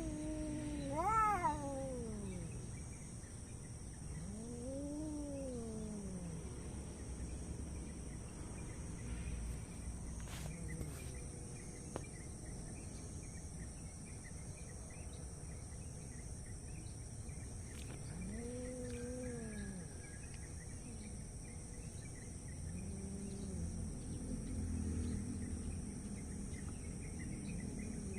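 Domestic cats caterwauling in a squabble over food: four long, drawn-out yowls that rise and fall in pitch, with long pauses between them. The first, at the very start, is the loudest.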